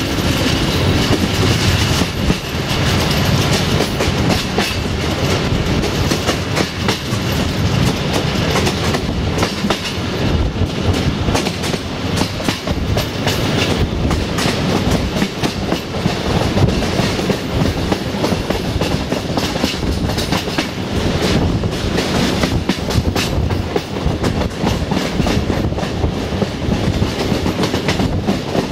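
Passenger carriage of a diesel-hauled regional train running at speed, heard at a carriage window: a steady rushing rumble with the wheels clattering irregularly over the rail joints.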